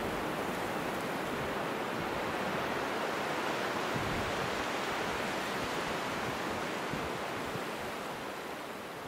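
Steady rushing noise of sea surf, easing off slightly near the end as it starts to fade out.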